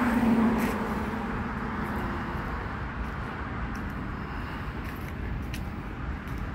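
A steady low motor rumble with a faint hum, loudest about half a second in and then slowly fading, with a few faint clicks.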